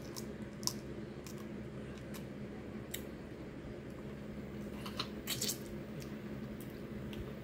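Eating crab legs by hand: scattered small clicks and crackles of shell being picked apart and meat being chewed, several bunched together about five seconds in, over a steady low background hum.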